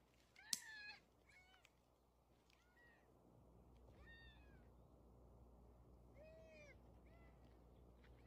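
Short, high animal cries, each rising then falling in pitch: one loud cry about half a second in, then five fainter ones spread through the rest. Under them is a faint low hum that comes in about three and a half seconds in.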